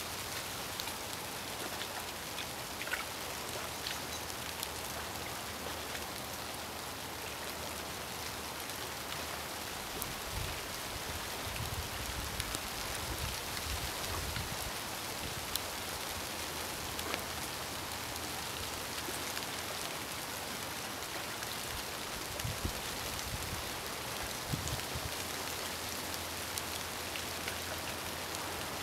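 Steady outdoor hiss like light rain, with a few low rumbles about ten to fifteen seconds in and again a little past twenty seconds.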